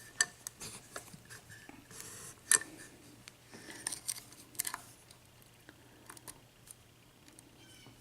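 Lock pick and tension wrench working the pin stacks of a six-pin ERA euro cylinder: faint, irregular small metallic clicks and scrapes of the pick in the keyway, with a few sharper clicks.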